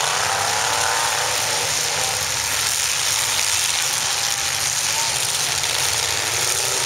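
Demolition derby cars' engines running loud and steady, a continuous rough roar of many engines.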